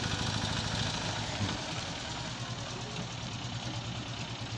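Datsun 120Y's 1.2-litre A12 four-cylinder engine idling steadily.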